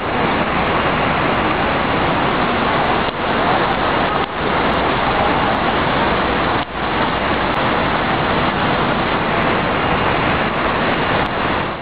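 Steady, loud rushing noise of a large gas fire burning at a gas holder, dipping briefly three times.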